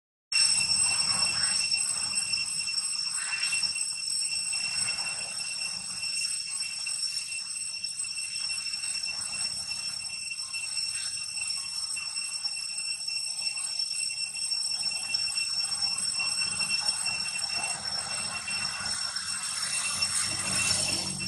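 Steady high-pitched insect drone, a continuous ringing buzz, over faint rustling. It cuts out for a moment at the very start.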